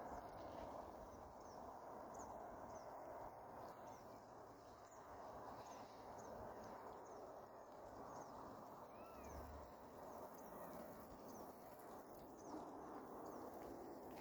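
Faint outdoor ambience: a steady hiss with small birds giving short high chirps, about one a second.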